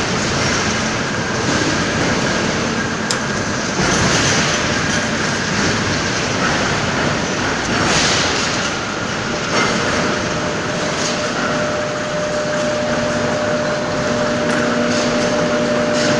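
Kramatorsk 1A665 heavy screw-cutting lathe running: a loud, steady mechanical noise from its drive and gearing, with a faint steady whine that comes in about ten seconds in.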